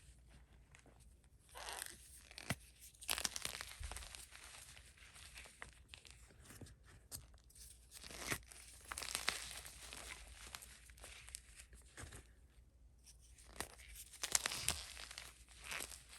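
Gym chalk topped with cornstarch being squeezed and crumbled by fingers, giving irregular bursts of crunchy, squeaky scrunching every few seconds.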